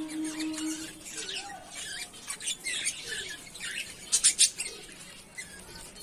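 Several budgerigars chattering in a cage, a run of short high chirps and warbles with a few sharper, louder calls about four seconds in.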